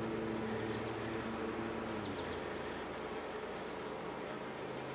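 A distant lawn mower's engine droning steadily, its pitch shifting about two seconds in, over a faint outdoor hiss.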